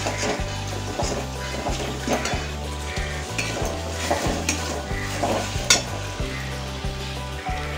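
Onion-and-spice masala sizzling as it fries in an aluminium kadai, stirred and scraped with a metal spatula, with sharp clinks of the spatula against the pan at irregular moments.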